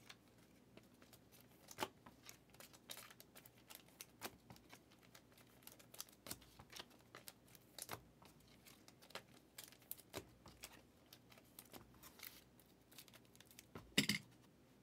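Faint rustling, crinkling and light clicks of trading cards and pack wrappers being handled, with a louder rustle near the end.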